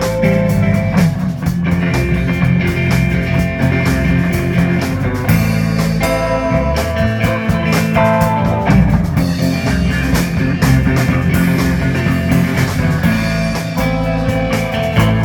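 A live rock band playing a blues-tinged number, with guitar leading over bass and a drum kit keeping a steady beat.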